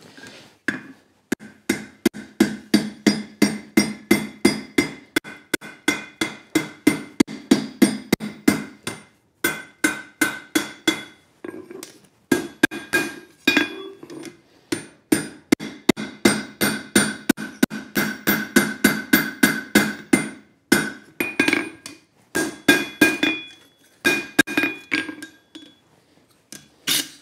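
Hand hammer striking a hot steel bar laid over an anvil horn, about three blows a second in long runs with brief pauses, each blow ringing. The steel is being driven back to round out the eye of a forged coffee scoop.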